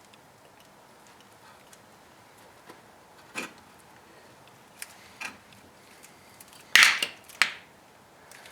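Scattered light clicks and knocks of brake caliper parts being handled as greased slide pins go back into the caliper, about half a dozen separate taps with the loudest short clatter near seven seconds in.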